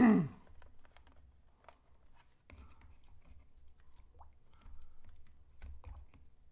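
Paintbrush scrubbing and tapping in the wells of a plastic watercolour palette as the palette is cleaned: faint, scattered small clicks and taps.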